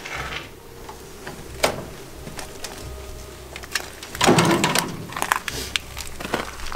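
Footsteps crunching and clicking irregularly over loose rubble, broken tile and brick debris, with a heavier crunch a little past four seconds in.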